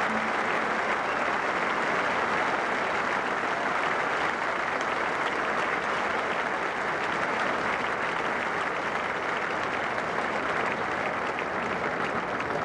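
A large stadium crowd applauding steadily.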